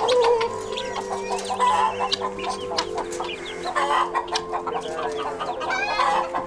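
Chickens clucking and calling, with short chirps over several steady held tones.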